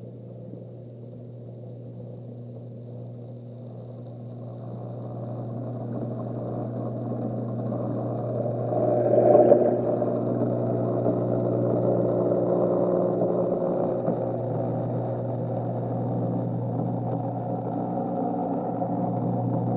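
Reef aquarium sump equipment running: a steady pump hum with a rush of moving water over it. The rush grows louder from about four seconds in and peaks briefly around nine seconds before levelling off.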